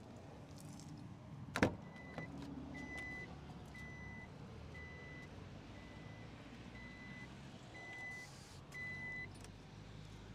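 A sharp click, then the Dongfeng M5's warning chime beeping about eight times, roughly once a second, each beep a short high tone, over a low steady hum.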